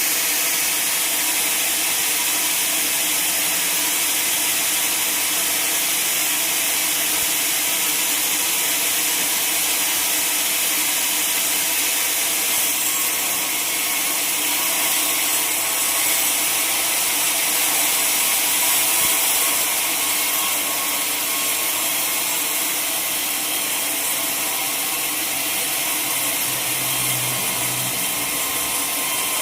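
Sawmill saw cutting lengthwise through a log: a steady, unbroken high hiss of the cut over the hum of the mill machinery.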